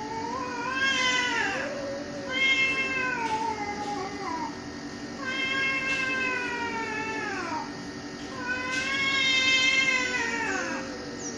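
Domestic cat caterwauling: about four long, wavering yowls, each one to two seconds, with short gaps between them and the pitch falling away at the end of each. This is the drawn-out yowling of a cat squaring off for a fight with another cat. A steady low hum runs underneath.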